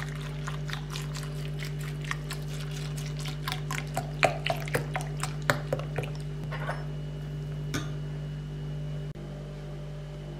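Almond milk poured in a thin stream onto a bowl of dry oat flakes with dried berries, splashing and crackling in many quick small pops. The pouring stops about eight seconds in, and a steady low hum runs underneath.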